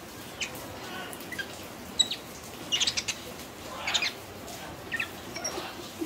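Scattered short, high-pitched animal chirps and squeaks, a few at a time, about every second.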